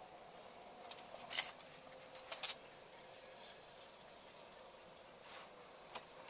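Light metal clatters and scrapes of a hand tap wrench and small steel parts being handled at a bench vise, two louder ones about one and a half and two and a half seconds in, over a faint steady hum.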